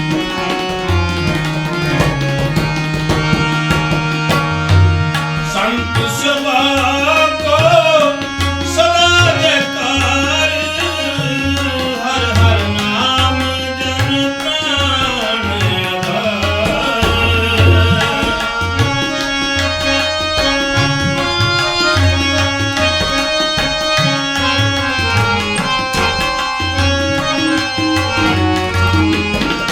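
Sikh kirtan music: tabla playing a steady rhythm under sustained harmonium notes, with a melody that wavers and bends in pitch from about six seconds in until about eighteen seconds.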